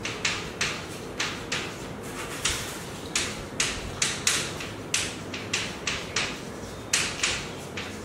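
Chalk scratching on a blackboard as a line of working is written, a quick run of short strokes, about two or three a second.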